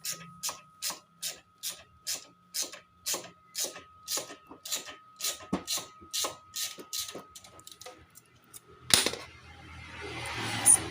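A 12 mm ratchet wrench clicking in a steady run, about two clicks a second, as the horn's mounting bolt is undone. About nine seconds in there is one loud knock, then rustling handling noise.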